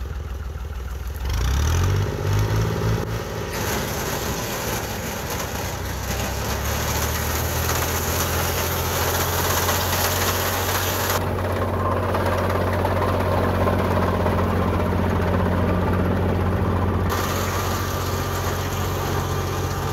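Diesel tractor engine revving up about a second and a half in, then running steadily under load while its front-mounted wheat reaper cuts standing crop. A steady high hiss from the cutter bar and stalks rides over it, dropping away abruptly about eleven seconds in and returning near the end.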